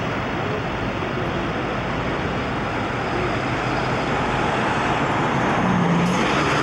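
Steady city street traffic noise, growing a little louder near the end.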